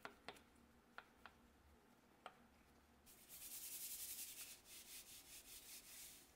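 Red long-handled wheel brush scrubbing inside a wet, soapy alloy wheel: a soft brushing and rubbing that starts about three seconds in and lasts about three seconds, after a few faint ticks.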